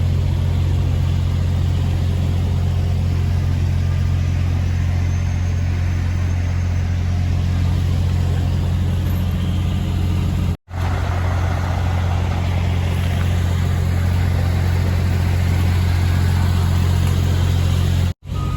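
Heavy diesel engine of a rotator wrecker truck running steadily at a constant speed, a low drone. It drops out abruptly for a moment twice: about ten seconds in and just before the end.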